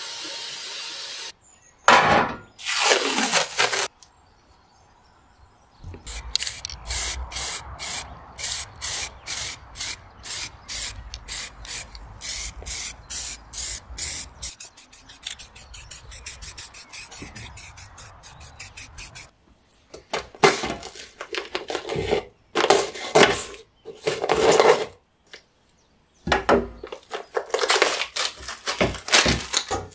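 A rotary wire brush scrubs rust off an ornate metal stove leg. Then an aerosol can of spray paint hisses in many short bursts, about two a second, for several seconds. Near the end come clusters of handling noise as the painted metal legs are rubbed and fitted by hand.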